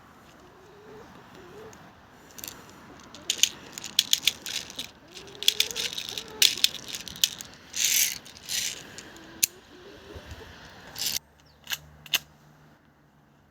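A spring-powered airsoft pistol, the ASG CZ-75D Compact, being worked by hand: a run of irregular sharp clicks and rattles from its slide and mechanism, with two short louder bursts a little past the middle.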